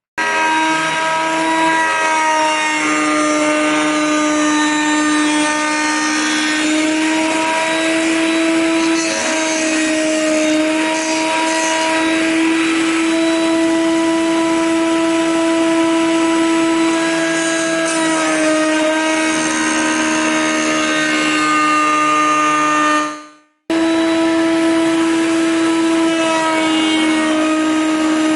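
Wood router running in a router table, a steady high whine with slight dips in pitch as it cuts into the wood. It breaks off briefly about three-quarters of the way through, then is running again at once.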